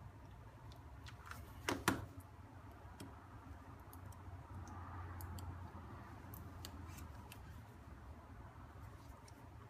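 Small tool clicks and light scraping on a Samsung Galaxy S6 Active's internals as a jammed SIM card is pried at, with two sharp clicks close together a little under two seconds in, over a steady low hum.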